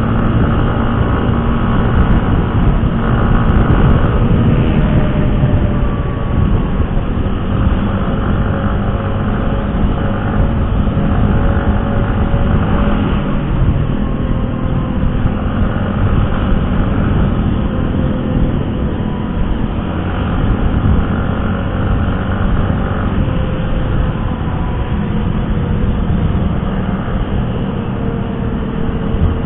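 Yamaha R15 single-cylinder engine running while riding, its pitch drifting slowly up and down, under steady wind and road noise.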